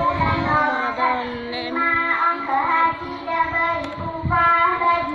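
A child singing solo, a long ornamented melody of held, wavering notes that slide between pitches, in several phrases.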